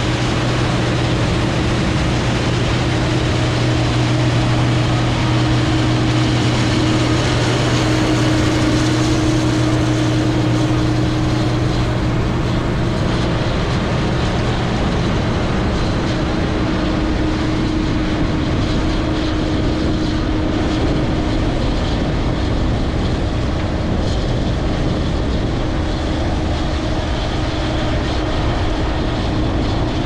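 Case IH Axial-Flow 2577 combine running while harvesting corn, its low engine hum fading about halfway through as it pulls away. A steady, higher drone whine, likely from the propellers of the camera drone, runs throughout.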